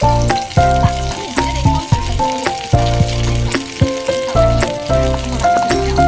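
Background music with a plucky melody and a steady bass beat, over chicken wings sizzling as they fry in a pan.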